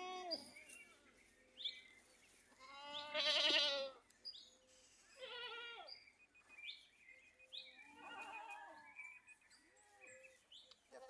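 Goats bleating: about four wavering calls, the longest and loudest about three seconds in. Short, high chirps come between the calls.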